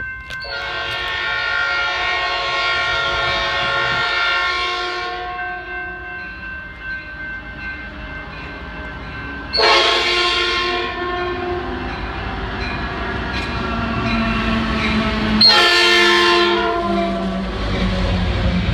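A diesel locomotive's multi-note air horn sounding three blasts as a Metrolink train approaches: a long one of about four seconds, then two shorter ones of about a second and a half, some five seconds apart. The low rumble of the train rolling past swells near the end.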